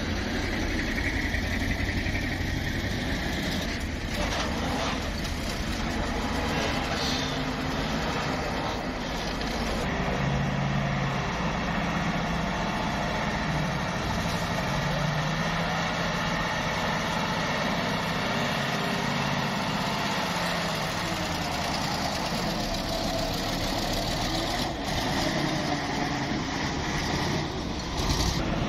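Heavy diesel dump truck engines running under load, a steady low drone whose pitch shifts now and then as the trucks pull through soft dirt.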